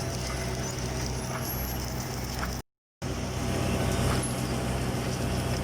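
Steady low machine hum of submerged arc welding equipment running on a tank seam, with an even hiss over it. The sound cuts out completely for a moment about two and a half seconds in, then resumes as before.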